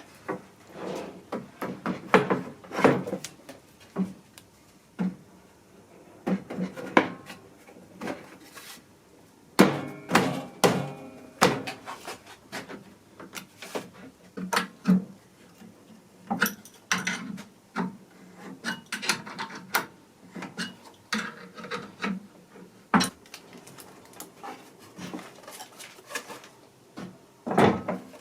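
Irregular wooden knocks and clatter, as of small pieces of wood being handled, knocked together and set down on a workbench, a few sharper strikes among them.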